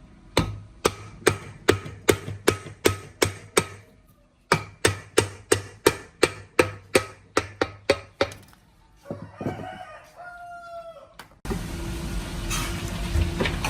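Hammer blows on metal, sharp and evenly paced at about two and a half a second, in two runs with a short pause between. A rooster crows after the strikes, and then a loud steady noisy sound starts abruptly near the end.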